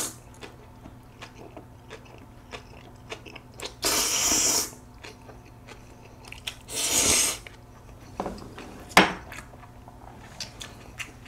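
Chapagetti black-bean-sauce instant noodles being slurped in two long hissing slurps, about four and seven seconds in, with wet chewing clicks between them and a single sharp click near the nine-second mark.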